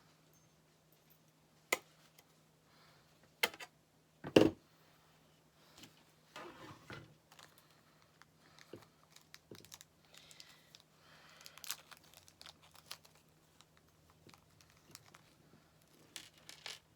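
Things being handled on a work surface. There are two sharp clicks and then a heavier knock about four seconds in, followed by irregular crinkling and rustling with small clicks.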